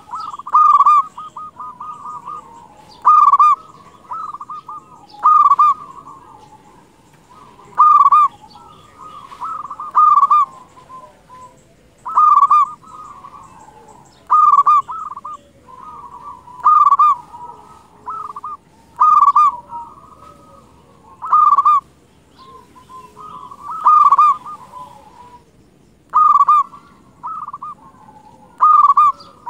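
Local-strain zebra dove (perkutut) cooing its repeated song: a loud, clipped phrase about every two seconds, with softer rolling trills between phrases.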